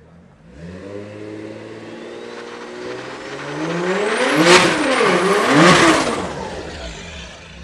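Big-single-turbo BMW 335i Touring's straight-six engine pulling away and revving hard, climbing to two loud peaks about four and a half and six seconds in with a brief dip between, then falling away as the car passes. A high whine rises and falls with the revs.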